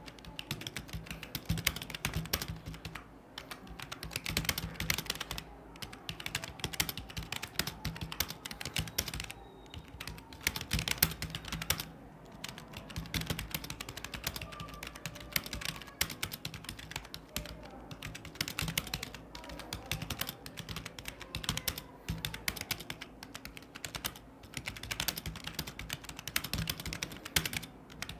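Fast typing on a computer keyboard: a dense stream of key clicks, broken by brief pauses.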